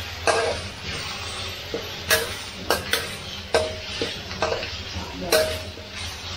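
Homemade jungle curry paste sizzling in a little oil as it is stir-fried, with a spatula scraping and knocking against the pan about eight times.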